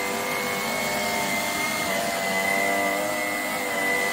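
Shark PowerDetect Pet Plus cordless stick vacuum (IP3253) running steadily, its motor giving a constant high whine over a hum of several steady tones.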